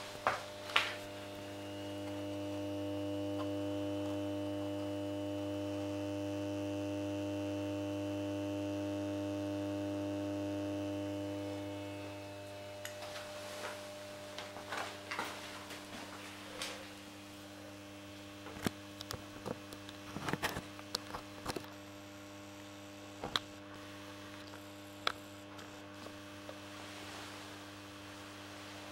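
Old 125 W magnetic choke ballast humming steadily at mains frequency while it drives a lit mercury-vapour lamp. The hum is louder for the first ten seconds or so, and scattered clicks and knocks follow in the second half.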